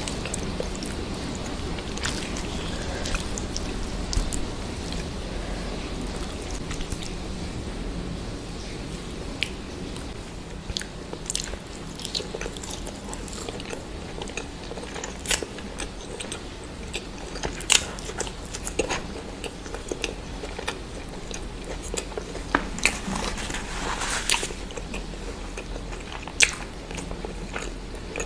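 A person chewing and biting food close to the microphone, with irregular sharp crunches and mouth clicks.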